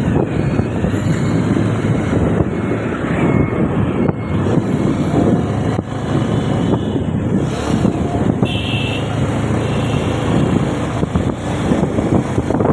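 Motorcycle running along at road speed, its engine and tyre noise mixed with wind buffeting on the microphone. A short high tone sounds briefly about two-thirds of the way through.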